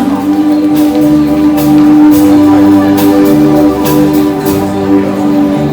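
Background music with sustained instrumental notes and a steady beat.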